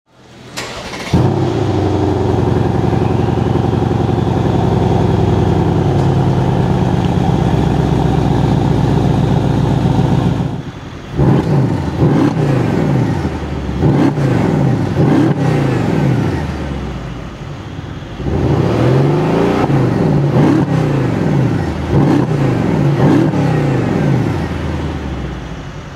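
Mercedes-AMG 5.5-litre twin-turbo V8 of a 2014 E63 AMG S Wagon starting up and settling into a steady idle for several seconds. It is then revved repeatedly in two sets of quick rises and falls in engine pitch.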